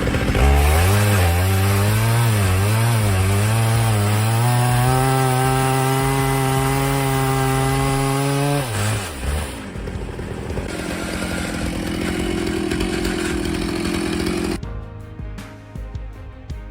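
Chainsaw running at high revs, its pitch wavering for the first few seconds, as when cutting under load, then holding steady before it falls away about nine seconds in. A quieter, lower run follows, and music comes in near the end.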